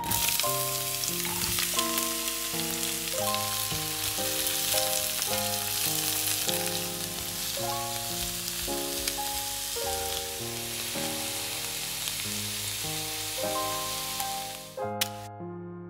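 Sliced white and red onions sizzling in hot olive oil in a frying pan, starting as they drop into the oil and stirred with a spatula. The sizzle cuts off suddenly near the end, leaving light background music.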